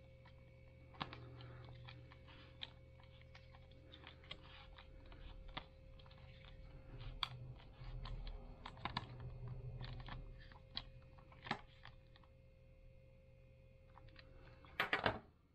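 Scattered small clicks and ticks of a multitool's screwdriver bit turning a screw in the plastic handle of a Minelab CTX 3030 metal detector, with a quick cluster of louder clicks near the end.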